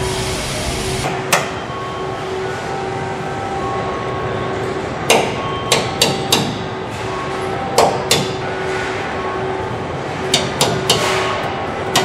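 A hand hammer striking metal on a pickup truck body: about ten sharp strikes, mostly in quick groups of two or three, over a steady assembly-plant hum with a constant tone.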